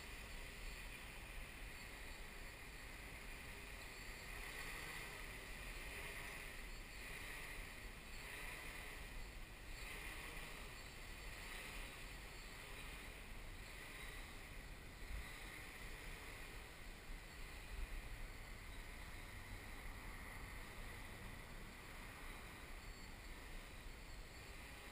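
Faint buzz of the XAircraft X650V X8 coaxial octocopter's electric motors and propellers in a hover, rising and falling every second or two as the throttle and motor speeds change. Low wind rumble on the microphone underneath.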